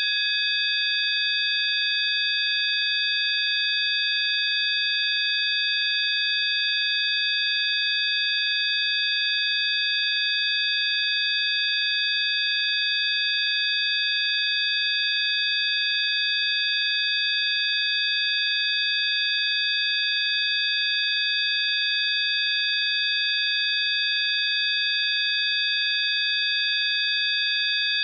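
Several steady, high-pitched electronic sine tones held together without change over a faint hiss: a synthesized healing-frequency tone track.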